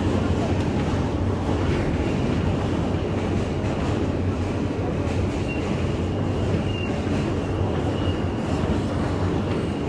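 New York City subway train running: a steady rumble of the car on the rails, with a faint high wheel squeal coming in and out in the second half.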